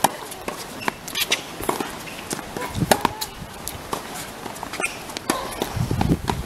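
Tennis rally: a sharp hit of racquet on ball every second or two, with ball bounces on the hard court. Voices start near the end.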